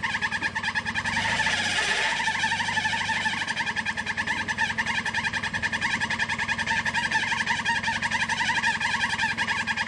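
Toyota off-roader's engine running under load with a steady, rapid pulsing as it crawls up a steep rocky slope.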